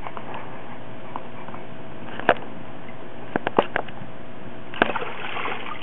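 A few short splashes and knocks as a toddler moves about in a shallow plastic wading pool: one about two seconds in, a quick cluster of three a second later, and another near the end, over a steady hiss.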